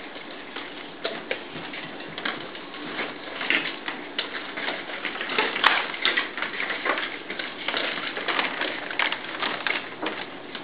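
Cardigan Welsh Corgi puppies' claws clicking and scrabbling on a hard floor as they play, a quick irregular run of clicks and scuffs, with one sharper knock about five and a half seconds in.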